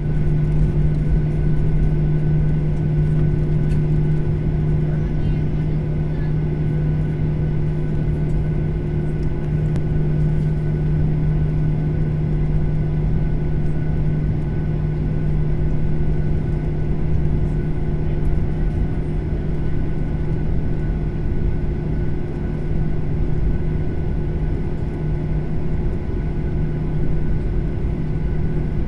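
Steady cabin hum inside a jet airliner as it taxis, its engines running: a constant low drone with a steady hum tone and no change in pitch or level.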